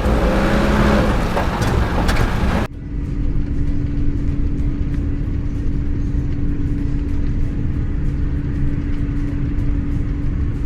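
Heavy truck engine running. About a quarter of the way in it cuts abruptly to a steadier, lower drone carrying a constant whine.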